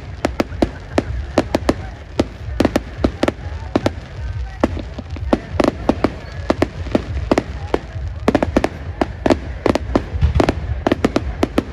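Fireworks display: a rapid, irregular string of sharp bangs and cracks, several a second, over a steady low rumble.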